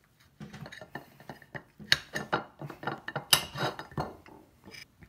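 Metal spoon knocking and scraping on a ceramic plate: a quick, uneven run of clinks and knocks.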